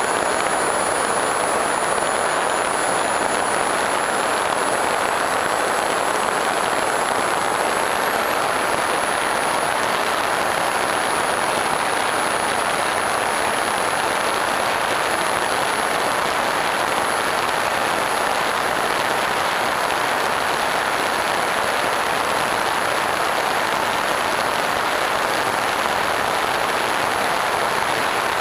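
FPV Raptor RC plane's electric pusher motor and propeller running at steady cruise, with wind rushing over the onboard camera. It is an even rushing noise with a thin, high, steady whine above it.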